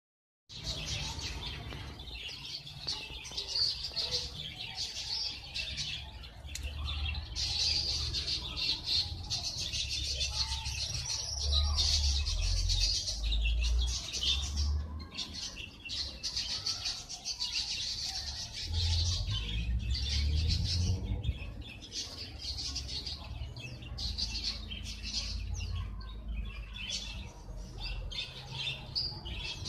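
Continuous outdoor chorus of high-pitched chirping, made of rapid pulsing trills that overlap, with an uneven low rumble on the microphone underneath.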